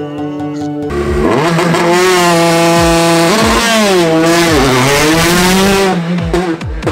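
After about a second of intro music, a rally car engine comes in loud at full throttle, its note dipping and climbing again twice as the throttle is lifted and reapplied, then easing off near the end.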